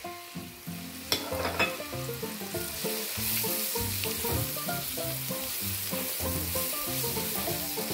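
Diced vegetables and sausage sizzling in hot oil in a pot as spices are added and stirred in with a silicone spatula; the sizzle grows louder a few seconds in as the stirring gets going, after a couple of light clicks about a second in. Soft background music plays underneath.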